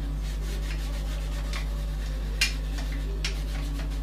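Hands working small wooden parts on a workbench: light rubbing with a few short clicks and scrapes, the sharpest about two and a half seconds in, over a steady low electrical hum.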